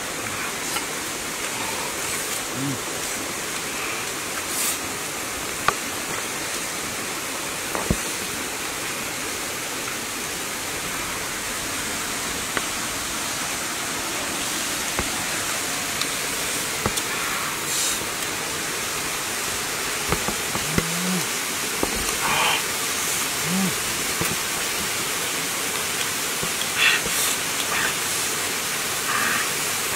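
Steady rushing of a waterfall, with scattered small clicks and cracks from salak fruit being handled and peeled, and a couple of brief low vocal sounds about two-thirds through.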